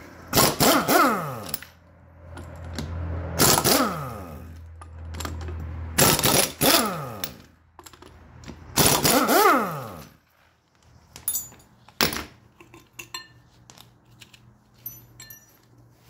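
Pneumatic impact wrench, run in four bursts of about a second each, undoing the bolts that hold a Triumph Spitfire's front brake disc to its hub. Each burst winds down in pitch as it ends. After the fourth burst there are a few light clicks and taps.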